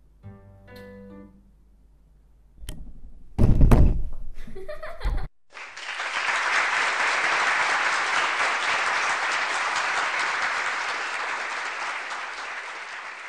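Loud thumps and knocks about three seconds in, then after a sudden cut, steady applause that slowly fades out.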